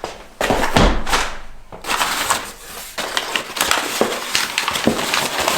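A box of brake parts set down with a heavy thud, then packaging rustled, crinkled and pulled apart as it is unpacked.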